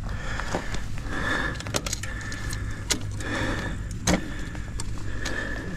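Bicycle chain on a Trek Slash 8 mountain bike being put back on by hand after coming off: metallic clicks and rattles, with three short buzzing stretches about two seconds apart.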